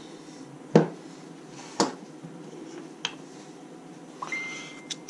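Metal injection mould pieces and clamps handled on a worktop: four sharp knocks and clicks, the loudest about a second in. A faint steady high tone sounds near the end.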